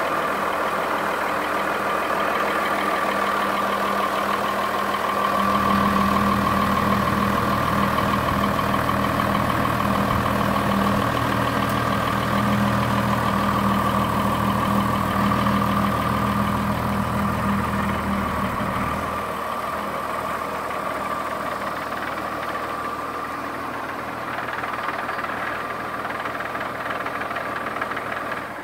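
White 6124 Workhorse tractor's diesel engine running steadily, with a steady high whine over the engine note. A deeper, louder rumble comes in about five seconds in and drops away again about nineteen seconds in.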